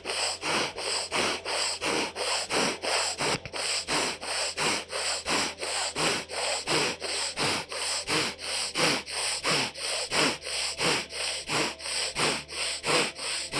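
Bhastrika pranayama (bellows breath): a woman breathing forcefully in and out through her left nostril alone, the right held shut, in a quick, even rhythm of about three noisy nasal strokes a second.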